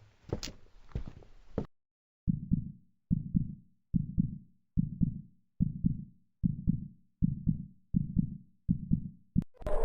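Heartbeat sound effect: a steady run of low double thumps (lub-dub), about 75 beats a minute, starting about two seconds in after a few sharp knocks.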